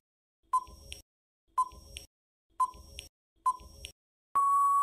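Quiz countdown-timer sound effect: short electronic beeps about once a second, then one long steady beep starting near the end that signals time is up.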